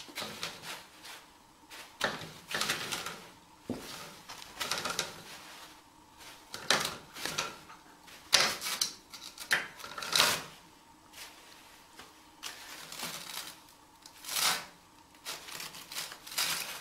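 Toilet paper rustling and crinkling in irregular bursts as a kitten pulls it off the roll and paws at the loose pile of paper.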